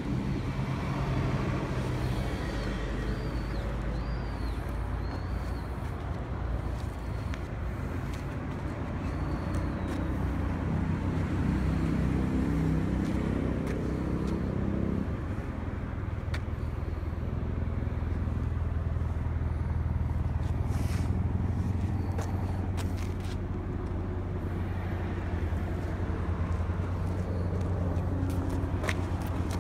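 Honda UM-T12 self-propelled walk-behind weed mower's small engine running steadily, its note changing about fifteen seconds in.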